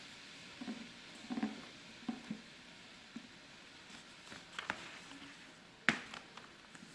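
Sheet of paper being handled and folded: scattered soft taps and crinkles over a faint steady hiss, with one sharp tap about six seconds in.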